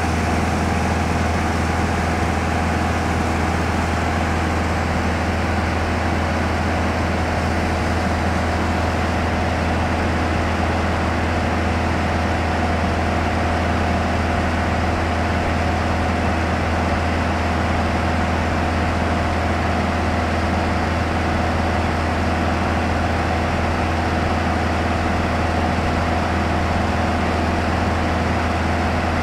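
Light touring aircraft's engine and propeller droning steadily in cruise, heard from inside the cabin, with a strong low hum and a few steady higher tones over the rushing noise.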